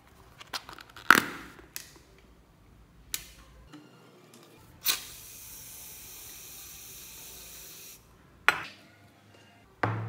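Fingertip pressing foam-bead slime (floam) in a plastic tub, giving a few crackly clicks, then an aerosol can spraying white foam onto it in a steady hiss for about three seconds. Two sharp clicks follow near the end.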